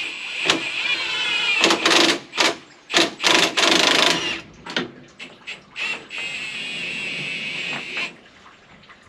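A small power tool whirring in three bursts, the last about two seconds long, with sharp metallic knocks and clicks between them, as bolts on the front of a forage harvester are undone.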